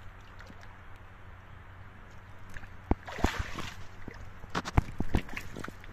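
Water splashing as a fish caught in a gill net is hauled up out of the water beside a wooden boat, about three seconds in, with several sharp knocks around it.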